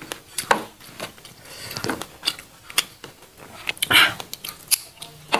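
Close-miked eating sounds: scattered wet clicks and crackles of chewing and of fingers picking at food, with a louder crackling tear about four seconds in as food is pulled apart by hand.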